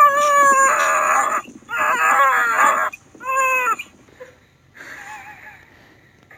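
Three long, high-pitched screaming cries in a row, the third shorter, with a faint cry about five seconds in.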